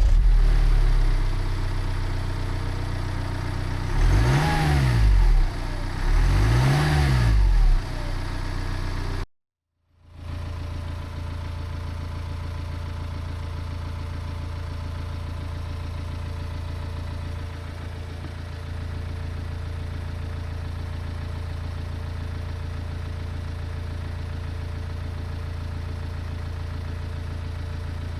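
Mini Cooper SD's N47 four-cylinder diesel catching and idling, revved up and back down twice, then cutting off abruptly and resuming as a steady idle. It is running again after a fuel filter change.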